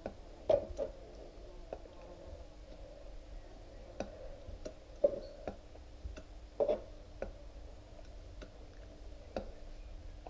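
Faint, irregular clicks and clunks, about a dozen spread unevenly, from a motorcycle fork leg (Honda NTV 650) being handled upside down in a cut-open oil container while its fork oil drains.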